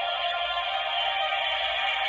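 Music with singing, sounding thin and tinny with no bass, playing steadily.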